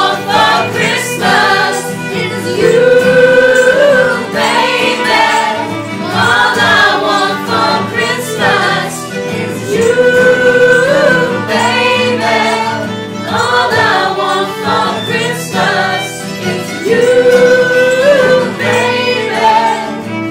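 A large mixed group of men and women singing a Christmas song in chorus, accompanied by acoustic guitar and violin. Long held notes come about every seven seconds.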